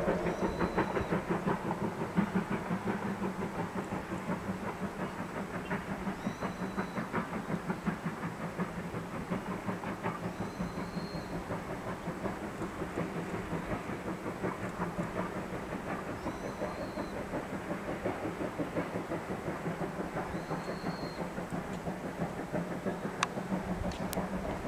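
C11 steam tank locomotive running with a train, a fast, steady rhythmic beat of exhaust and wheels on the rails.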